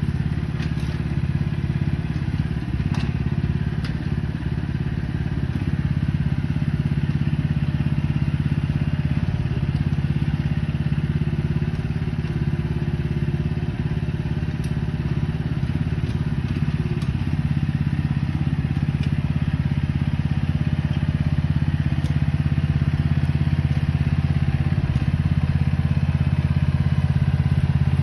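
BlueBird Mex 600 mini excavator's engine running steadily, with a few sharp clanks over it.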